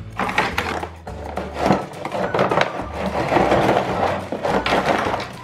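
Cardboard box and plastic Play-Doh molds and tools rustling and clattering as they are pulled out of the box, in a string of irregular clicks and knocks.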